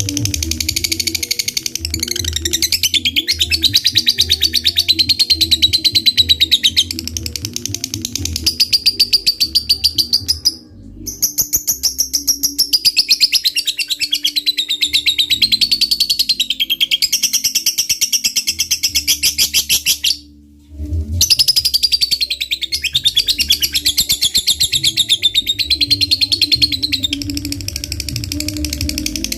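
Fighter lovebird's ngekek song: a long, fast chattering trill of rapid high notes, broken by two short pauses about ten seconds apart.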